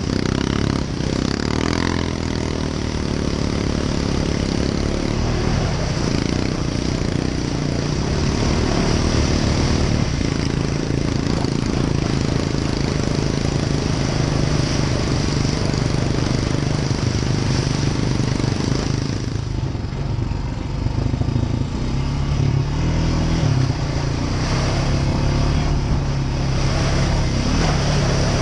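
ATV engine running under load as the quad drives through mud and standing meltwater, heard from onboard, its note rising and falling with the throttle.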